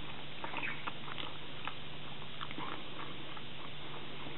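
Wooden chopsticks tapping and scraping on a plastic bento tray in a string of small, irregular clicks while picking up the last grains of rice, over a steady background hiss and low hum.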